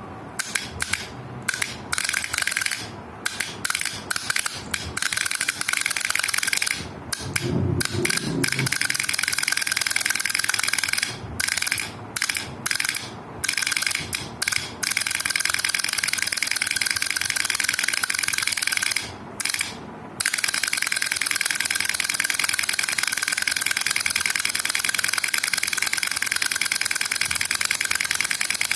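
Electrical contactor chattering very rapidly, a harsh machine-gun-like rattle. It starts and stops many times in short bursts, then runs unbroken from about two-thirds of the way in.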